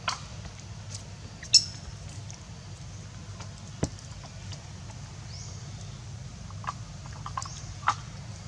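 Outdoor ambience: a steady low hum with a few scattered sharp clicks, and one brief high squeak about one and a half seconds in.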